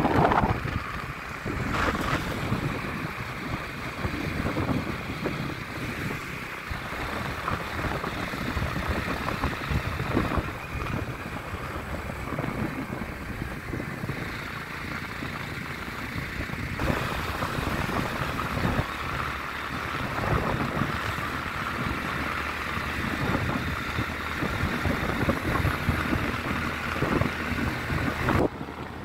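Wind buffeting the microphone on a moving motorcycle, with the motorcycle's engine running steadily underneath.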